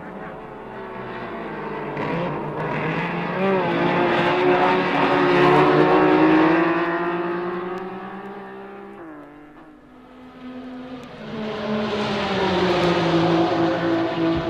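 Skyline 2000GT-R race car's S20 twin-cam straight-six running at high revs on a race track. It builds to its loudest about six seconds in and fades away with a slight drop in pitch by ten seconds, then another pass builds up again near the end.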